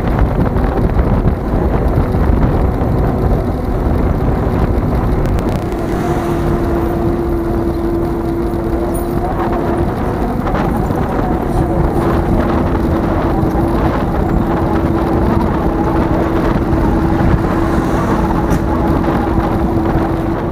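Road noise while riding an electric bicycle along a road with car traffic: a steady rumble of motor-vehicle and ride noise, with a steady hum setting in about six seconds in, dropping out briefly around ten seconds and returning.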